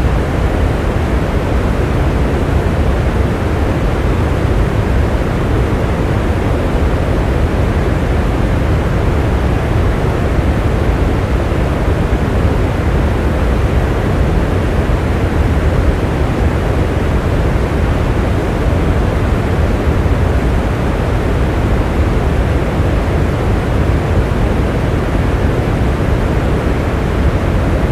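Rain falling steadily: an even, unbroken noise, heaviest in the low end.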